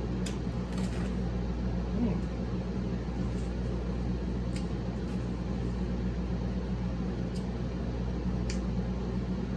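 Steady low electrical hum with a few short, faint clicks of eating scattered through it: chewing, mouth noises and utensil taps.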